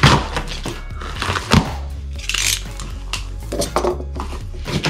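A cardboard shipping box is opened by hand over background music. Scissors clink, the taped cardboard flaps rustle and scrape, and there are sharp knocks at the start and about a second and a half in.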